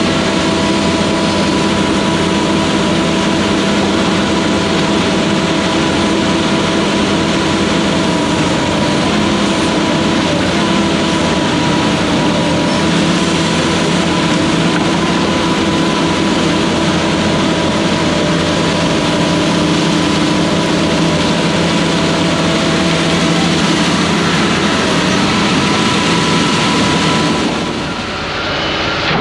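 Diesel engine of a Hyundai crawler excavator running steadily under load while it digs, with a steady whine over the engine noise.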